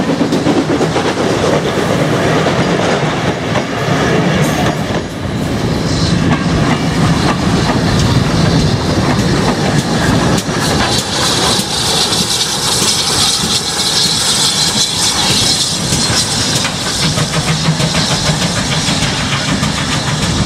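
A steam-hauled train of passenger coaches behind a GWR 57xx pannier tank rolls past and draws away, its wheels clicking over the rail joints. A hiss rises for a few seconds past the middle.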